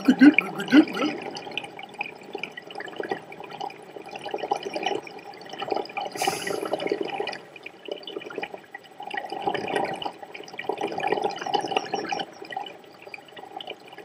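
Water gurgling and dripping in irregular bursts, with one brief hiss about six seconds in.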